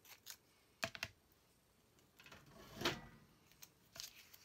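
Light taps and clicks of scissors and washi tape being handled on a cutting mat, with a brief rustle near the middle as the tape is pressed down.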